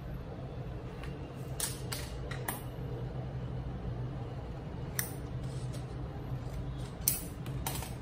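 Scissors and paper being handled: a few short, crisp snips and rustles of thin craft paper, heard one by one over a steady low hum.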